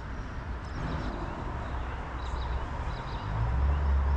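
Outdoor riverside ambience: a low steady rumble that swells about three seconds in, with faint short bird chirps over it.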